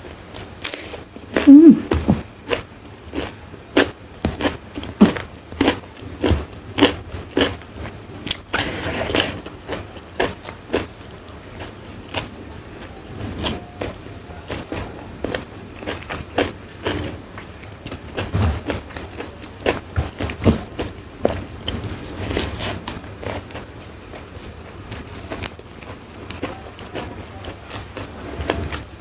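Close-miked eating: a steady run of sharp, irregular crunching bites and chewing of crunchy food.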